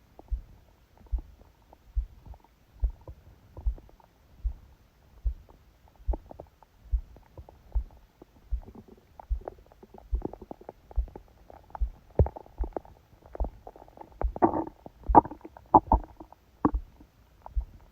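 Stomach gurgling and rumbling, picked up by a phone pressed against the belly during sleep, over a steady heartbeat thudding a little faster than once a second. The gurgles grow through the second half and are loudest near the end.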